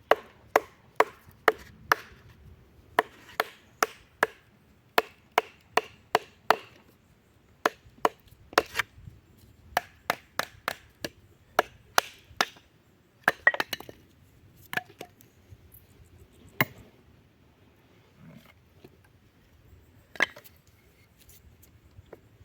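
A wooden baton striking the spine of a bushcraft knife to split wood: sharp knocks in quick runs of two to three a second with short pauses, then a few single strikes spaced seconds apart near the end.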